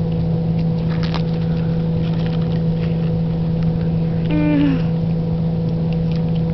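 Steady motor hum, like an engine or machine running unseen, with a few faint clicks and one short pitched sound about four and a half seconds in.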